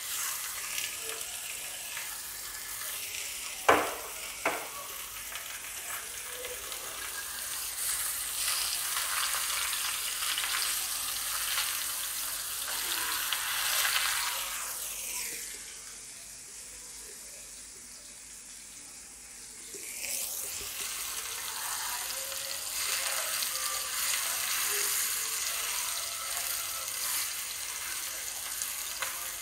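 Thin marinated chicken pieces sizzling in soybean oil on a flat tawa griddle, a steady frying hiss. Two sharp clicks come about four seconds in, and the sizzle drops away for a few seconds midway before coming back.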